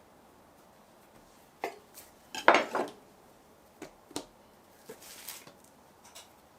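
Kitchen utensils and dishware knocking and clinking: a single knock, then a louder clatter lasting about half a second a little over two seconds in, followed by a few lighter knocks and a soft scraping rustle.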